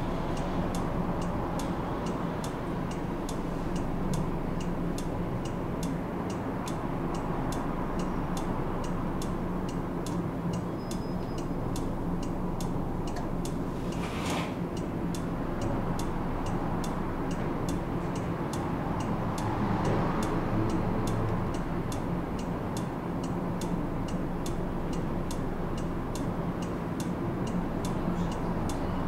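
Tram running with a steady low hum, under a regular ticking of about three ticks every two seconds. A short hiss comes about 14 seconds in.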